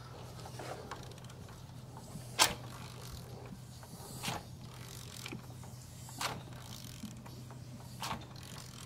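Hand tools working on a Mitsubishi Evo X engine as it is turned to line up its timing marks: sharp metal clicks about every two seconds, the loudest about two and a half seconds in, over a steady low hum.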